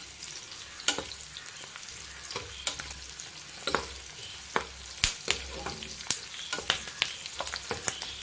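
Chopped onions sizzling in hot oil in a frying pan, stirred with a spatula that scrapes and clacks against the pan at irregular moments.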